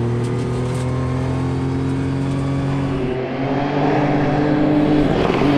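Ford Fiesta Rally3 rally car's turbocharged three-cylinder engine running hard on a gravel stage. It holds fairly steady revs, then revs up about three seconds in and drops back near the end, as on a gear change.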